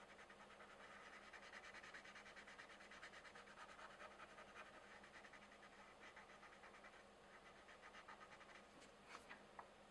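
Coloured pencil shading on a colouring-book page, a soft scratchy scribble of rapid back-and-forth strokes that eases off about seven seconds in. Two light clicks come near the end.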